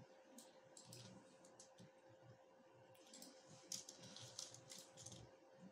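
Near silence with faint, scattered clicks of a computer keyboard and mouse being worked, most of them in the second half, over a faint steady hum.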